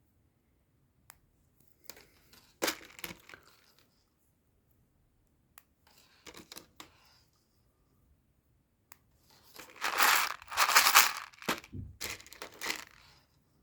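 Small plastic Lego Technic parts being handled and sorted: scattered clicks and short rustles, then a louder run of rattling and rustling about ten seconds in.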